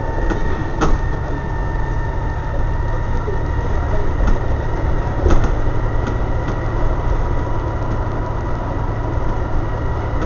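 Volvo B7TL double-decker bus's six-cylinder diesel engine and drivetrain running steadily, heard inside the passenger saloon as a low rumble with a steady high whine. Body panels rattle with a few short knocks about a second in and again around four and five seconds.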